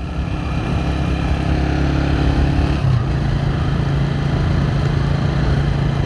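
A vehicle engine running on the move, with road noise. It swells at the start and its hum steps up in pitch about three seconds in.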